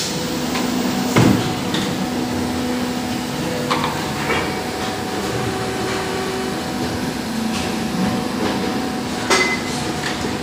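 Injection moulding machine and its gantry robot running: a steady machine hum with a few sharp knocks, the loudest about a second in and others near four and nine seconds.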